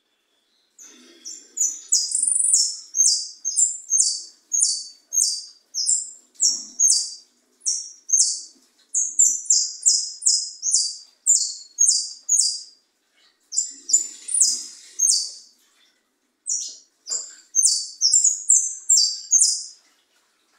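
Jilguero finch singing: long runs of quick, high, repeated chirping notes, broken by short pauses. The bird is singing as a 'maestro', a tutor bird whose song young finches learn.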